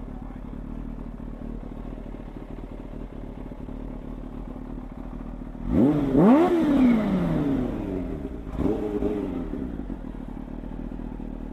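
Kawasaki Ninja H2's supercharged 998 cc inline-four idling, then blipped twice in quick succession about six seconds in, the revs shooting up and falling back. A smaller blip follows a couple of seconds later before it settles back to idle.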